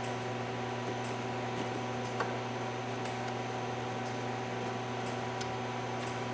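A steady machine hum with several fixed tones, over faint light clicks and ticks from hands working a plastic quick-release tool on a heater-core hose fitting.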